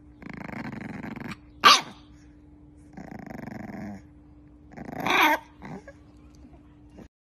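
Bulldog puppy growling and yapping: two low growls of about a second each, each followed by a short, sharp, high bark, the first bark the loudest, and a small yip near the end.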